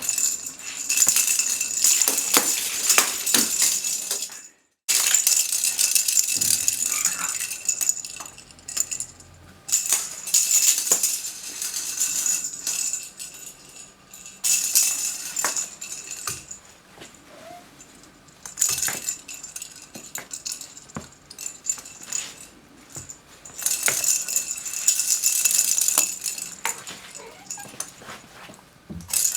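A rattle ball batted and rolled about by a cat, rattling in spells of a few seconds with short pauses between them.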